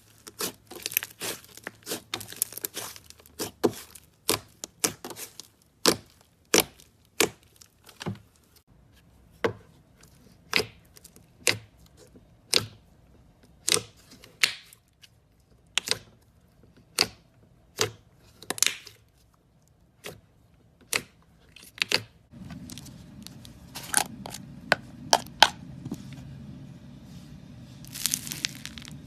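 Slime being squeezed and played with, making a string of sharp crackling pops, close to two a second. A low steady background noise comes in about 22 seconds in.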